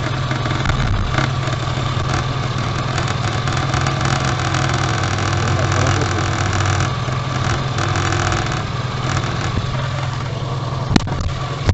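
ZAZ Tavria pickup's engine idling, heard from underneath, with a rough scraping rattle from under the floor. The owner puts this down to the engine sitting higher on new mounts, so that the exhaust resonator and its heat shield rub against the underbody. A single sharp knock comes near the end.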